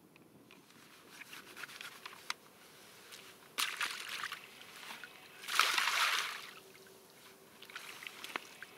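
Water sloshing and splashing in the shallows as a plastic bucket is dipped into the river and its water splashed out, with the loudest splash lasting about a second midway, plus a few small knocks and drips.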